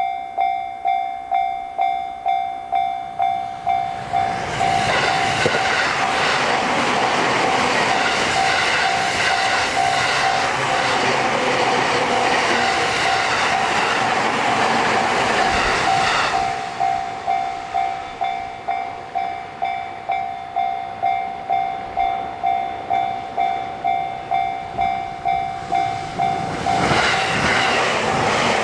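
A Japanese level-crossing alarm ringing its 'kan-kan' strike about twice a second. A train on the JR Sobu Line runs through the crossing from about four seconds in for some twelve seconds, mostly drowning the bell. A second train starts passing near the end.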